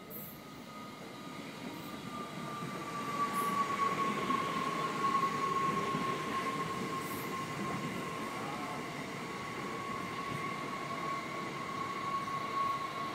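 NS Sprinter Lighttrain electric multiple unit pulling in slowly past the platform: rail rumble that grows louder about four seconds in as the train draws alongside, with a steady high whine that sinks slightly in pitch as it slows.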